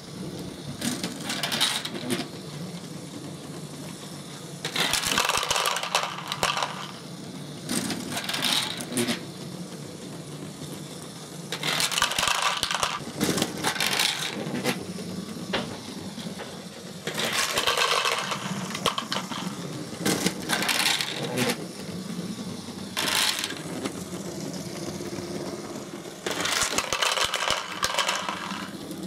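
LEGO Great Ball Contraption train module running, with a steady hum of LEGO motors and gearing. Every few seconds there is a burst of small plastic balls clattering as they pour into and out of the train's wagon and hopper.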